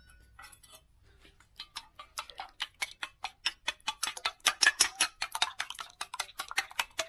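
Chopsticks beating eggs in a bowl: a quick, irregular run of clicks against the bowl, faint at first, then louder and faster.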